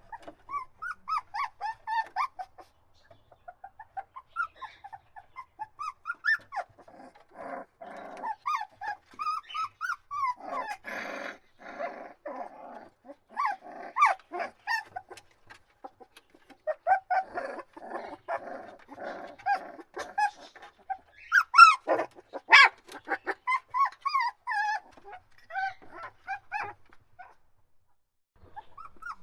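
Puppies whining and crying: many short high-pitched whimpers and squeals, with stretches of rougher, stuttering yelps and a louder outburst of cries about two thirds of the way through.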